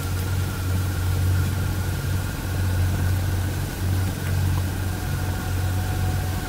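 2022 Royal Enfield Classic 350's single-cylinder engine running while riding: a steady low thrum that swells and eases slightly every second or so, over a constant rush of noise.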